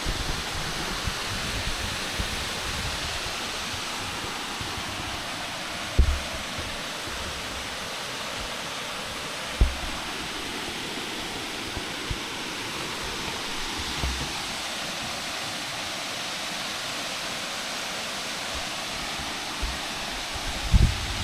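Waterfall rushing with a steady, even noise of falling water. A few short low thumps stand out, about 6, 10, 14 and 21 seconds in.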